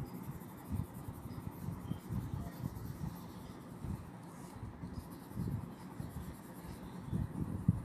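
Coloured pencil scratching on paper in many short, irregular back-and-forth strokes as a small area is shaded in.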